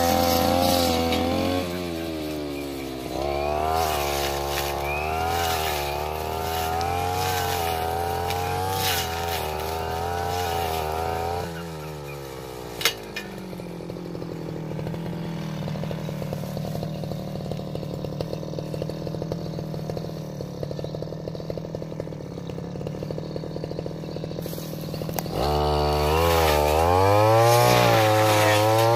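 Stihl brush cutter engine running at high revs, its speed rising and dipping for about ten seconds, then dropping back to a steady idle with one sharp click just after. Near the end it revs up again.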